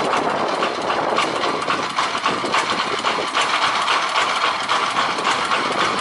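A motor running steadily with a fast, even rattle.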